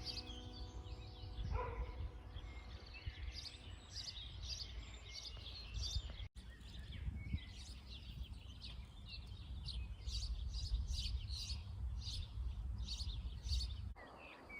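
Small birds chirping and calling repeatedly in quick short notes, over a steady low rumble.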